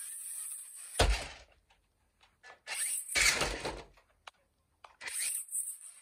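Grave Digger RC toy monster truck: its electric motor gives a high-pitched whine, then the truck thuds down onto the carpet about a second in. A second run of motor noise ends in a heavier thud around three seconds, and the motor whine starts again near the end.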